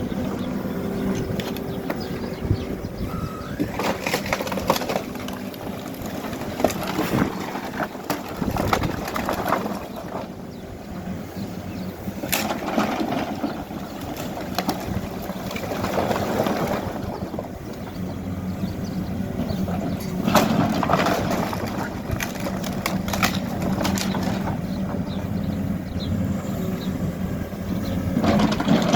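Backhoe loader's diesel engine running and surging in loudness every few seconds as it works under load, with sharp cracks and clatter of demolition rubble being broken and moved.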